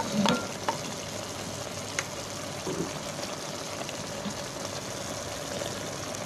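Chicken and vegetables in a thin, watery sauce sizzling and simmering in a pan: a steady hiss, with a few light clicks of the plastic spoon against the pan near the start. A faint steady hum runs underneath.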